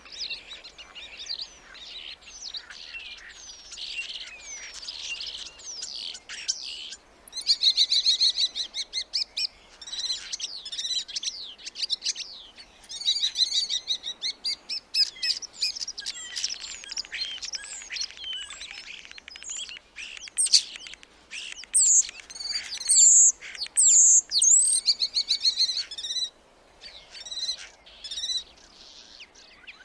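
Starlings singing: a dense run of chattering whistles, clicks and rattling trills, pausing briefly about seven seconds in and again near the end, with the loudest sharp whistles in the last third.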